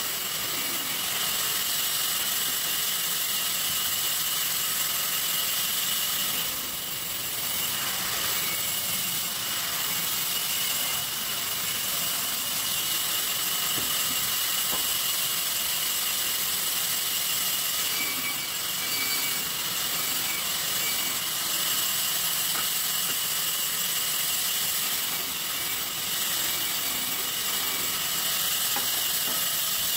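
Sawmill saw machine running steadily, a constant high-pitched whine over a hiss.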